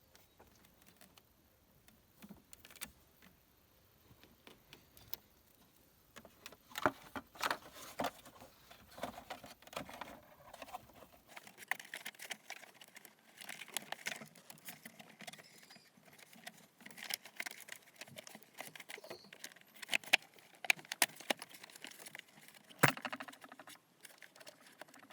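Irregular clicks, taps and light metallic clinks of hands refitting parts in a car's engine bay. They are sparse at first and come thicker after about six seconds, with a few sharper knocks.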